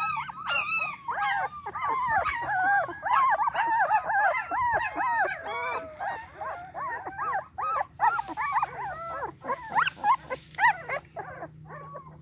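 Month-old Gultair (gull terrier) puppies whining and yelping without a break. The whines are short and rise and fall, several a second, and they thin out near the end.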